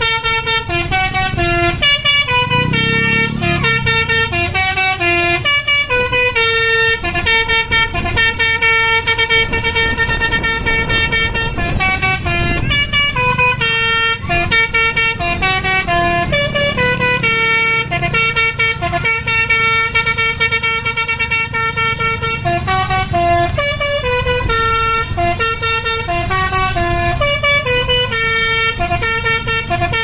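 A bus's basuri multi-tone air horn playing a continuous melody, its notes stepping up and down in quick succession, over the low rumble of the bus.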